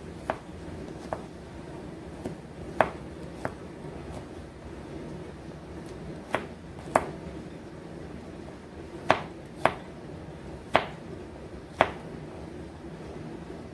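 Kitchen knife chopping garlic cloves on a plastic cutting board: about eleven sharp knocks of the blade on the board, irregularly spaced, often a second or so apart.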